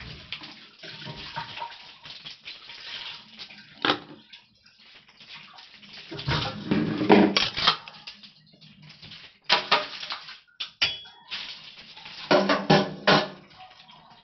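Tap water running into a stainless-steel kitchen sink while dishes and a pot are washed by hand, with repeated clattering, ringing knocks of dishware against the sink. The knocks are loudest in clusters about halfway through and again near the end.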